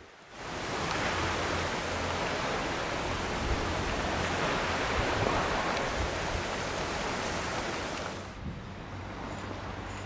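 Steady rushing of wind and sea surf on the coast, with low buffeting of wind on the microphone; it drops to a softer hiss about eight seconds in.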